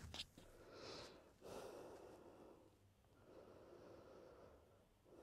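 Faint, slow deep breathing: a few soft breaths in and out, each lasting about a second, with a light click right at the start.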